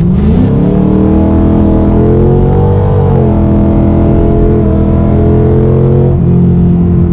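2008 Mustang GT's 4.6 L three-valve V8 accelerating under load, heard inside the cabin. The engine note climbs, drops sharply about three seconds in as the 6R80 six-speed automatic shifts up, then climbs slowly again.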